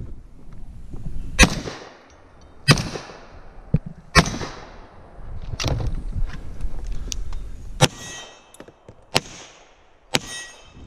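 Single gunshots fired about a second or a second and a half apart, first from a long gun and then from a pistol, some followed by the ringing of hit steel targets.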